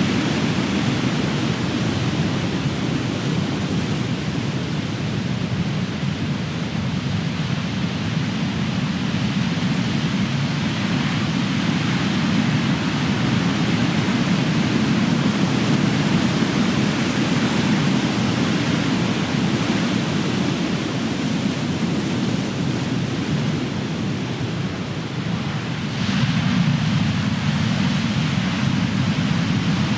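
Big ocean waves breaking as surf, a continuous heavy wash that swells and eases, with a fresh wave crashing in near the end.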